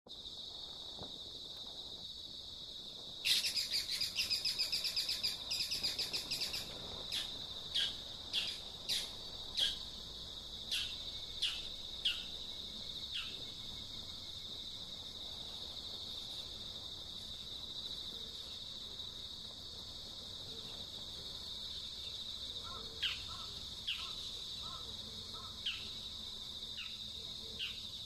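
Small birds calling over a steady high insect drone. About three seconds in comes a loud, fast run of chirps lasting a few seconds, then single sharp calls about one or two a second for several seconds, and a few more scattered calls near the end.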